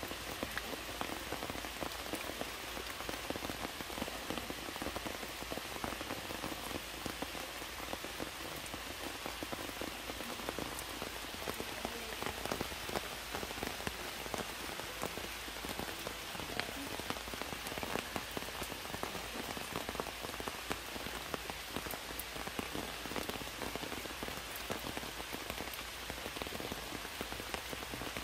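Heavy rain falling steadily, a constant hiss dotted with many sharp ticks of individual drops striking close by.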